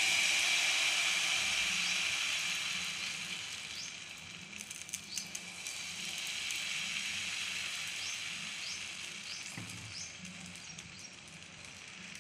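Dosa batter sizzling in ghee on a hot non-stick pan: a steady hiss, loudest at first and slowly fading. In the second half a steel ladle spreads the batter with repeated short scraping strokes against the pan.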